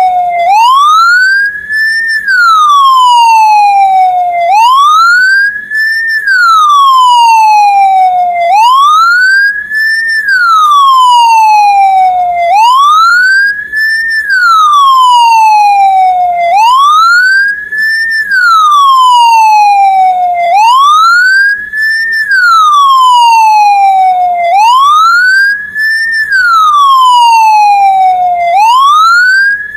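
Ambulance siren in wail mode: a single loud tone sweeping up quickly and sliding down more slowly, repeating about every four seconds.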